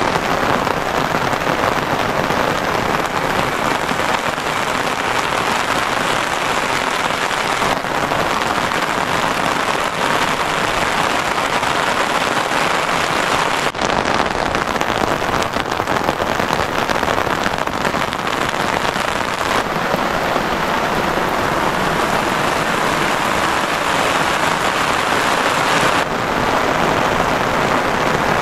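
Steady, heavy rainfall, a loud even hiss with no letup, shifting slightly in tone every few seconds.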